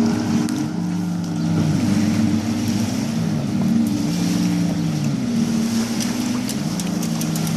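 Jet ski engines running on the water, their pitch stepping up and down repeatedly as the throttle is opened and eased.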